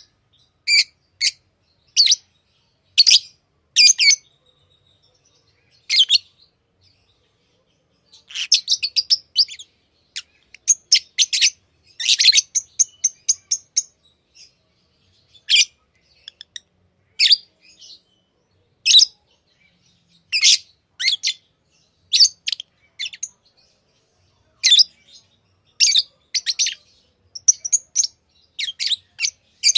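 Pet lovebirds chirping: short, sharp, high-pitched calls, some single and some in quick runs of several, with brief silent gaps between them.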